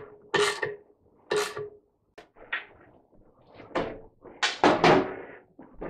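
Clunks and knocks of a washing machine's sheet-metal front panel being handled and fitted back onto the cabinet, after some tapping of a screwdriver at a fixing. The knocks come one at a time, with the loudest cluster near the end.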